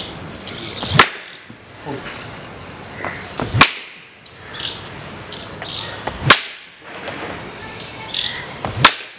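Bamboo lathi brought down hard on a stone four times, about every two and a half seconds, each blow a sharp crack. The stone does not break.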